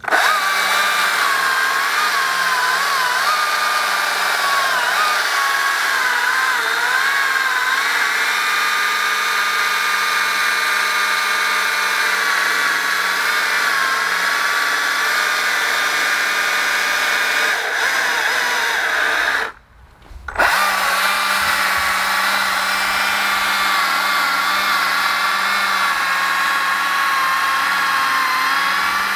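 Stihl MSA 220 battery chainsaw cutting through a log: a steady high electric-motor whine, its pitch dipping and wavering as the chain bites into the wood. The sound breaks off briefly about two-thirds through, then the saw is cutting again.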